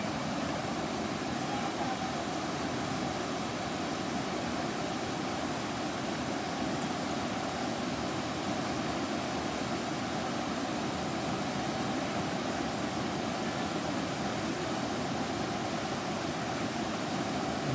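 Steady rush of a flood-swollen river's fast-flowing water, an even, unbroken noise.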